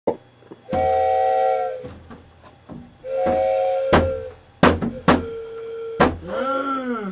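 Soundtrack music: held chords of several tones lasting about a second each, a few sharp hits, and tones that bend up and down near the end.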